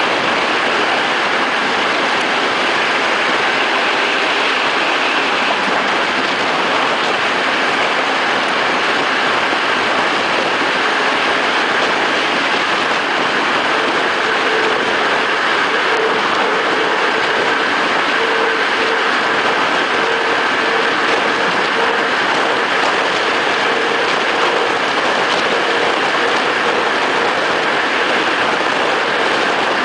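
Steady rush of wind and rail running noise from a regional train travelling at speed, heard from its open window. A faint steady whine joins about halfway through.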